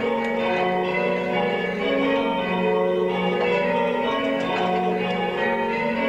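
Church bells rung full-circle in change ringing, from a ring recast by John Taylor's of Loughborough. The strokes follow one another in a steady, unbroken rhythm, each bell's ringing tone overlapping the next.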